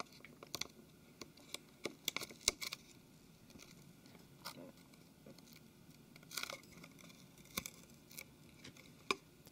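Faint scattered clicks and light scrapes of metal tweezers against a smartphone's front housing as the home key flex and its adhesive are pressed into place, with a quick run of clicks about two seconds in.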